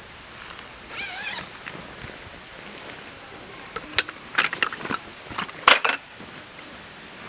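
A zipper being pulled in several short, rasping strokes about four to six seconds in. A brief warbling call is heard about a second in.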